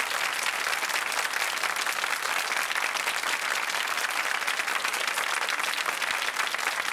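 Studio audience applauding, a steady, dense clapping that holds at an even level throughout.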